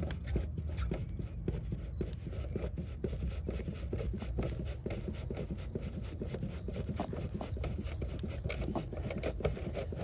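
Mercedes OM616 four-cylinder diesel idling with an even, fast clatter while it runs on diesel-purge solvent drawn from a container. A bird chirps a few times in roughly the first half.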